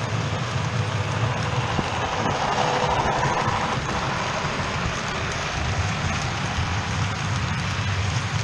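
OO gauge model trains running on the layout's track: a steady rumble of wheels on rail and motor hum with a hiss over it, swelling about three seconds in as a locomotive and its tank wagons pass close by.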